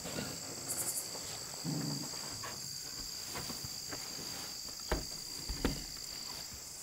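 Steady high-pitched chorus of crickets in a summer evening field, with a brief pulsed chirp just under a second in. Two light knocks come about five seconds in.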